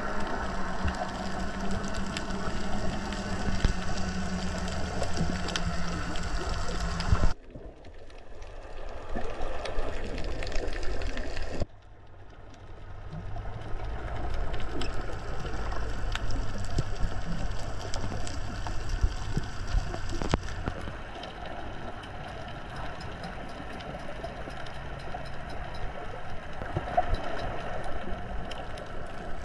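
Underwater ambience: muffled water noise with scattered crackling and a low hum. It drops away abruptly about seven seconds in and returns about four seconds later.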